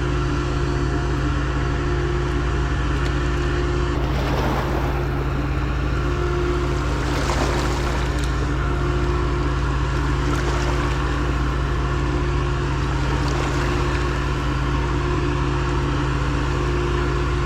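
A steady low engine drone made of several constant tones, like a large motor idling without change. Brief rushing noises rise over it about four and seven seconds in.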